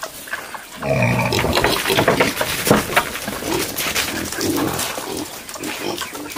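Penned wild boars grunting as they are chased to be caught, with one long low call about a second in and a run of short grunts later on. Scuffling and knocking sound alongside.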